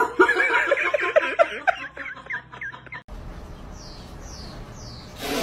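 A cat squeaking in a quick run of short chirping calls, several a second, as it is spoon-fed. These stop abruptly, giving way to a steady noisy background with three faint, high, falling chirps.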